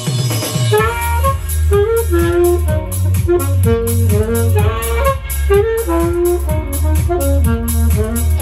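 Saxophone playing a bending melody line, picked up by a clip-on wireless instrument mic, over a backing track whose steady beat and heavy bass come in right at the start.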